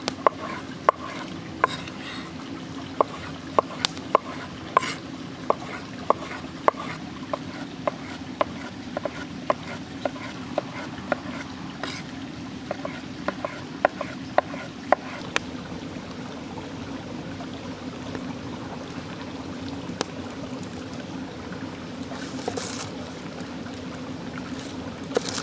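Large kitchen knife chopping tomatoes on a wooden board: sharp knocks about one or two a second that thin out about fifteen seconds in. Underneath, the steady rush of a flowing stream.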